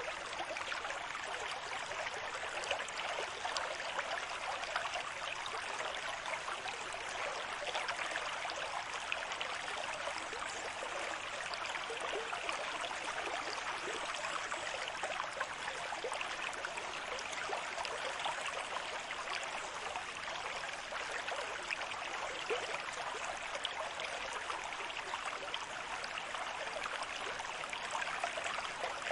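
Steady rushing water: an even hiss full of fine splashy crackle, holding level without the rise and fall of separate breaking waves.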